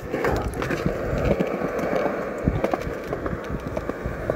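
Skateboard wheels rolling over concrete: a steady rumble broken by scattered clicks and knocks.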